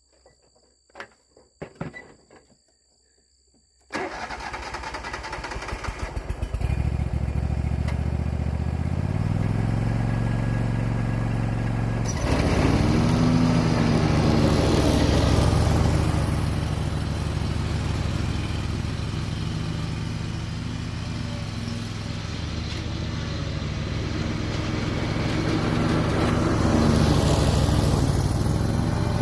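A small engine starts about four seconds in, after a few faint clicks. It picks up speed around six to seven seconds, rises in pitch briefly around twelve seconds, then keeps running steadily.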